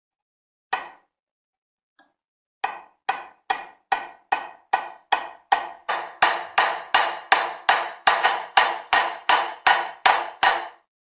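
A hammer knocking on a block plane's steel adjusting lever clamped in a bench vise. One knock comes first, then a steady run of about two dozen that speeds up slightly and grows louder partway through.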